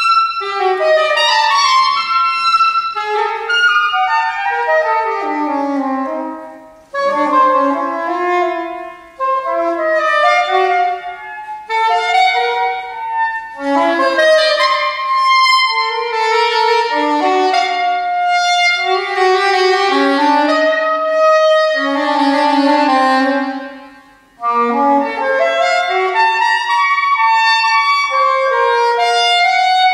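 Solo concert saxophone playing a fast, wide-ranging melodic line of quick notes, with short breaks about 7 seconds and 24 seconds in.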